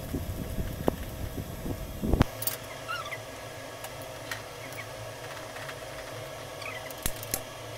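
A silicone whisk stirring thick, cooking yema custard in a metal pan: a low stirring noise for the first two seconds, a sharp knock about two seconds in, and two more knocks near the end. Faint short chirps come now and then in the background over a steady faint hum.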